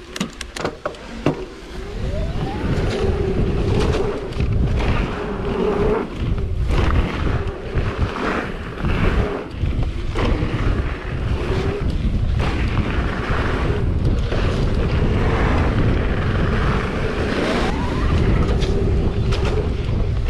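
Wind buffeting the microphone of a camera riding along on an e-mountain bike, with a heavy low rumble of tyres rolling over dirt. A faint steady whine runs underneath, and a few sharp clicks come in the first second or so.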